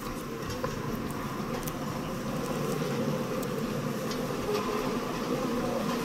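Empty railroad flatcars rolling slowly past, their steel wheels on the rails making a steady rumble with scattered light clicks that grows slightly louder as they come by.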